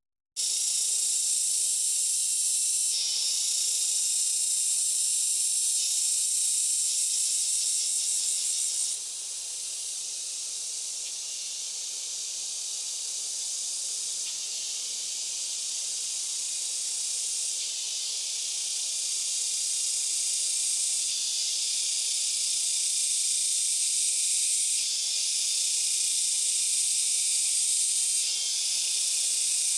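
Steady hiss of falling rain. It dips a little in level about nine seconds in.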